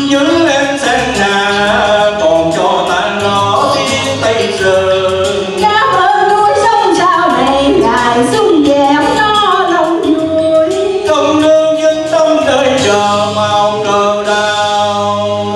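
A man and a woman singing a Vietnamese song as a duet, taking turns into handheld microphones.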